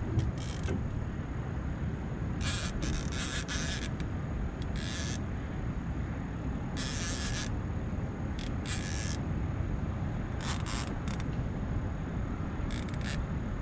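Fishing reel under the load of a hooked fish, its drag giving line in short buzzing bursts at irregular intervals, over a steady low rumble.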